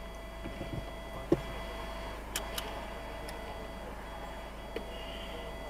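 Steady low hum inside a stationary vehicle's cab, with a few small clicks and one sharper knock about a second and a half in.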